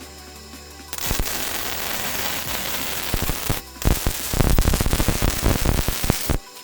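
Arc welding on steel, crackling steadily in two runs with a short break in between, over background music.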